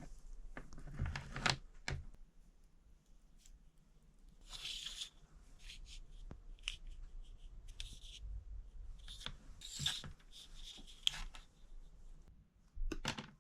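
Hand tools working heavy battery cable: snips and short rasping scrapes of insulation being cut and stripped, with scattered clicks of handling between them.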